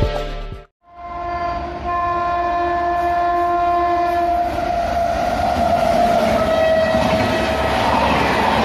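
Indian Railways express train's electric locomotive sounding a long, steady horn blast as it approaches through a station at speed, the pitch sagging slightly as it draws level. Then the rising rush and clatter of the coaches' wheels passing at speed.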